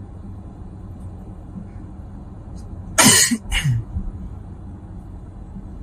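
A person coughs twice in quick succession, about three seconds in, inside a moving car's cabin over steady low road and tyre noise.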